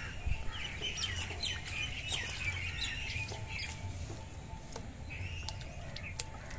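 Birds calling: a rapid run of short high chirps for the first few seconds, then a few more near the end.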